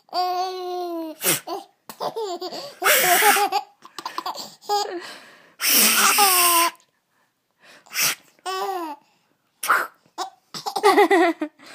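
Baby laughing in a run of giggles: pitched laughs mixed with breathy, gasping bursts, in short bouts with brief pauses between them.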